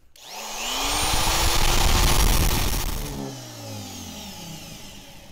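Electric rotary cutoff tool spinning up with a rising whine and grinding lightly into the inside of a piece of metal conduit to score traction lines, then switched off about three seconds in and winding down.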